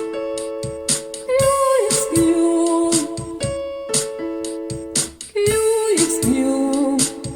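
Vocal warm-up exercise: a singer sings a short phrase that drops in pitch, twice, over piano accompaniment playing repeated chords.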